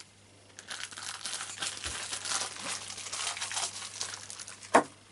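Packaging crinkling and rustling as it is handled for a few seconds, then a single sharp knock near the end.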